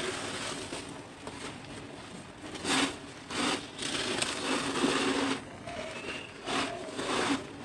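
Soaked cement being crumbled and squeezed by hand in a basin of water, in a run of short wet crunching, sloshing bursts, the longest lasting over a second.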